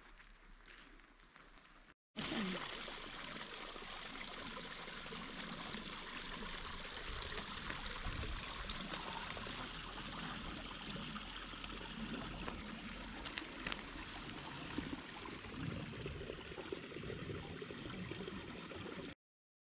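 Running water of a stream, a steady rushing flow. It starts abruptly about two seconds in, after a quieter stretch, and cuts off suddenly just before the end.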